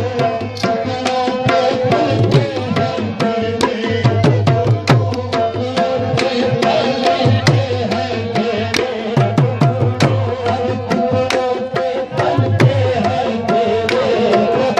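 Qawwali music: tabla playing a steady rhythm, with bass strokes that bend in pitch and frequent sharp strokes, over steady held tones of a harmonium.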